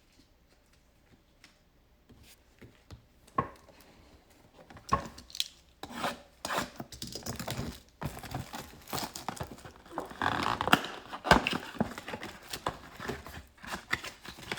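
Trading-card packaging being handled: rustling and scraping of cardboard and plastic wrap, with scattered taps and clicks. It starts sparse and grows busier from about five seconds in.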